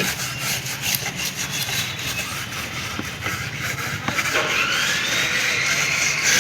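Repeated rubbing or scraping strokes over a steady low hum. A little over four seconds in, a high whine rises and then holds.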